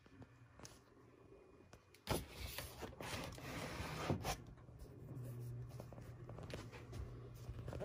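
Low, steady electric hum from the toy train station's small motor, starting about two seconds in, with rustling and a few knocks near two, three and four seconds in.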